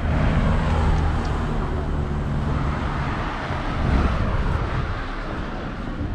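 Road traffic: a vehicle engine running with a steady low hum, and the rushing noise of a passing vehicle swelling about four seconds in.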